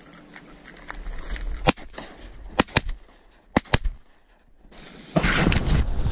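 Several shotgun shots in quick succession, about five over two seconds, from hunters firing at ducks passing overhead. Near the end, wind buffets the microphone.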